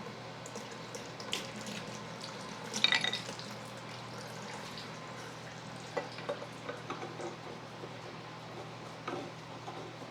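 Small metal parts of a shock absorber clinking and tapping as they are handled during a rebuild, with one bright ringing clink about three seconds in and scattered small clicks later.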